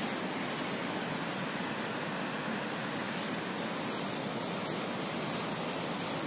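A steady, even rushing noise with no breaks or changes.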